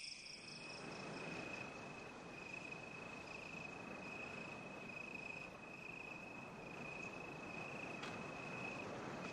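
Crickets chirping in a steady, faint, high-pitched trill over soft background hiss.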